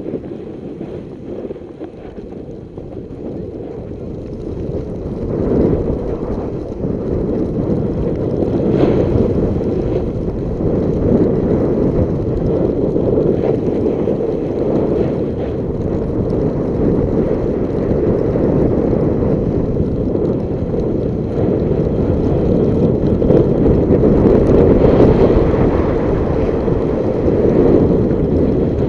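Wind rushing over the microphone of a camera carried down a ski slope: a steady low rumbling rush that grows louder about five seconds in and stays loud.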